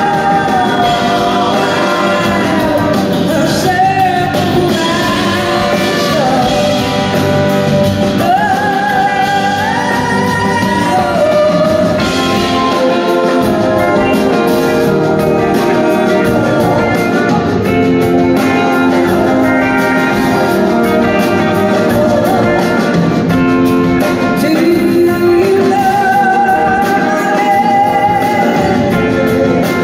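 Live rock band playing: a woman sings lead with backing singers over electric guitars and drums. Heard from the audience in a large hall.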